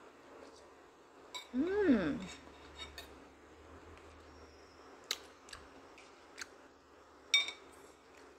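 Metal spoon clinking and scraping against a ceramic plate and a glass bowl while eating: a handful of sharp clinks spread over several seconds, the loudest near the end. About two seconds in there is a short pitched squeak that rises and falls.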